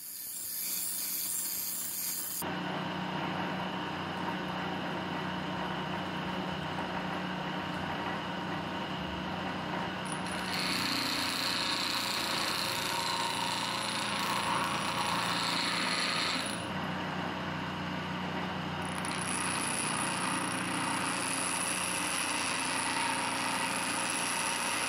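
Homemade bench grinder, a washing-machine motor spinning a normal grinding wheel, grinding the angles on a square steel lathe-tool bar: a steady motor hum under the rasp of steel on the wheel. The grinding grows louder about ten seconds in and again a few seconds later, as the steel is pressed harder against the wheel.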